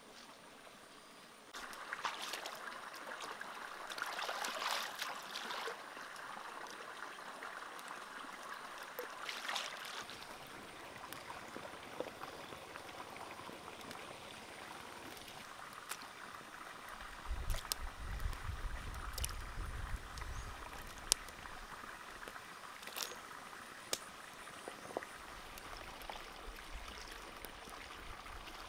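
Water splashing and trickling in a black wok set over a wood fire, with scattered sharp pops and crackles from the fire.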